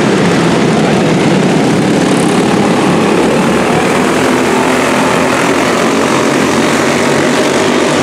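A pack of quarter midget race cars' small single-cylinder engines buzzing together at racing speed, a steady, loud, layered drone.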